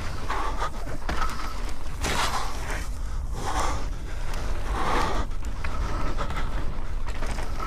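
Mountain bike being ridden over a dirt trail: tyres scraping and rolling on the ground with the bike rattling, under a steady low rumble and a noisy swell every second or so.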